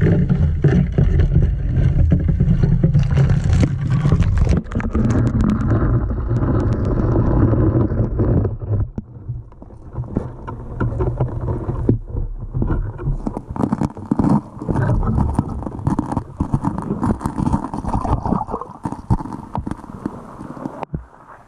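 Handling noise from an action camera in its waterproof housing as it is lowered through an ice-fishing hole: a loud, muffled low rumble with many clicks and knocks. About eight seconds in it drops to quieter underwater sloshing with scattered clicks and knocks.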